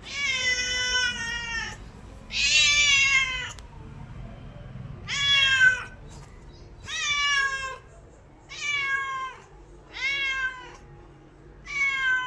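A cat meowing over and over, about seven long meows, each dropping in pitch at its end, with short pauses between them.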